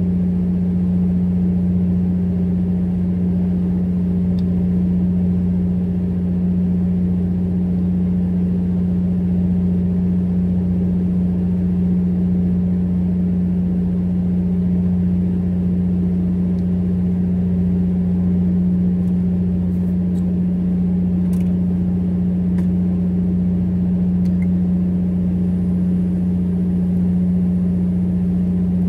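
Fishing boat's engine running with a steady, loud low drone. A few faint clicks come through about two-thirds of the way in.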